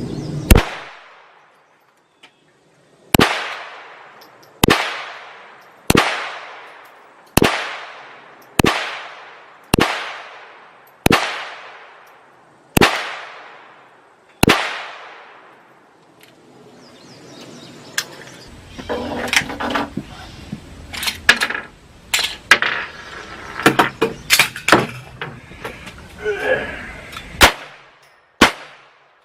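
.22 Browning 1911 pistol firing ten shots at a steady pace, about one every second and a half, each sharp crack trailing off in echo. After a pause, a stretch of clattering handling noise with several more scattered shots.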